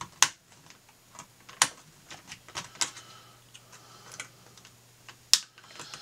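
An X-Acto knife blade prying off the heads of the plastic rivets that hold a climate-control faceplate to its circuit board: a run of small, irregular plastic clicks and ticks. Three sharper snaps come about a quarter second in, at about a second and a half, and about five seconds in, as rivet heads pop away.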